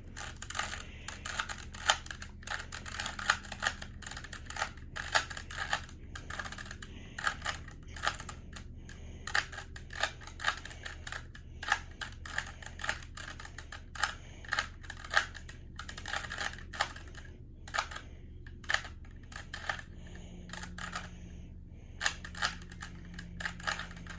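Rubik's-branded 3x3 cube being scrambled by hand: the plastic layers click and clack as they turn, in quick, irregular runs of several clicks a second.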